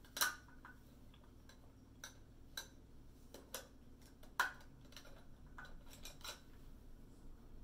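Paintbrushes being handled in the easel tray: an irregular scatter of light clicks and clinks as wooden handles knock against each other and the holder, with the two loudest soon after the start and about halfway through.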